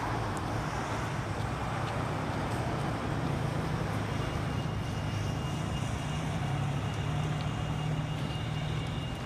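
Steady low rumble of road traffic and idling engines, with a thin, faint high whine joining about four seconds in.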